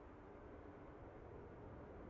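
Faint, steady engine sound of a British Airways Airbus A380 with its four Rolls-Royce Trent 900 engines on final approach: a low rumble with a couple of faint steady tones, slowly getting louder.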